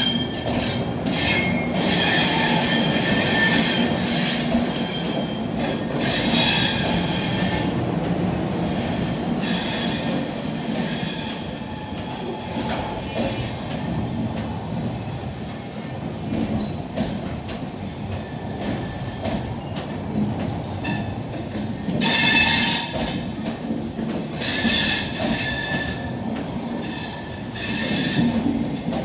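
Passenger coaches rolling past on steel rails. The wheels squeal in high ringing bursts, loudest in the first several seconds and again after the middle, over a steady low rumble and clatter of wheels on track.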